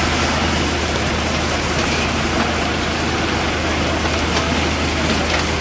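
A vehicle engine running steadily, a constant low hum under a broad rushing hiss.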